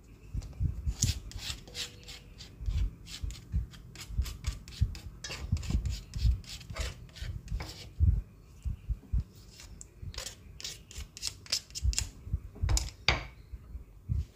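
Irregular scraping and tapping of a utensil against a stone mortar and a stainless steel bowl as ground spice paste is scraped out and dropped onto a mound of flour. The strokes are short and uneven, several a second at times.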